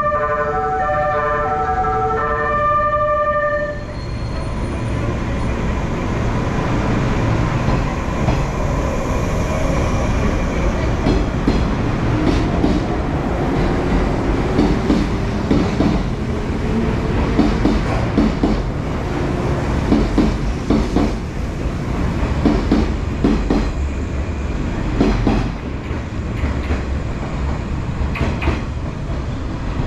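The music horn of the 485-series Resort Yamadori train plays a short melody of stepped notes for about four seconds. The electric train then pulls out and runs past, its wheels clicking repeatedly over rail joints.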